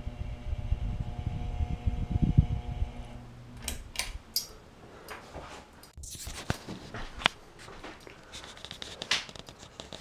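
Heritage ceiling fan motor humming steadily with a low rumble. The hum stops about three seconds in, and a few sharp clicks and ticks follow.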